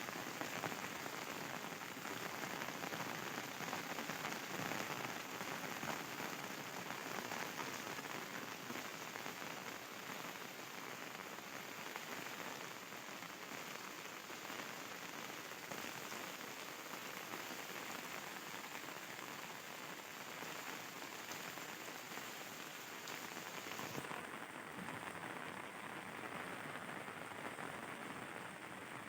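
Steady rain falling, an even hiss with no pauses; about five seconds before the end the highest part of the hiss drops away.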